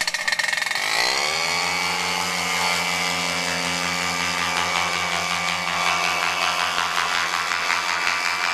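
MZ250 single-cylinder two-stroke paramotor engine and propeller, throttled up from idle to full power within about a second, then running steadily at high revs.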